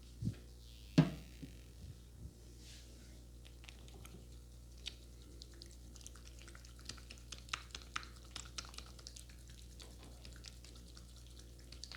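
A barber working close to the microphone on a customer's head, making small crackles and clicks of skin and hair. There is one sharp, loud click about a second in, and the crackling grows busier in the second half.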